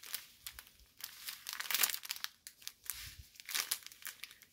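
A strip of small sealed plastic bags holding diamond painting drills crinkling as it is handled and turned over, loudest about two seconds in.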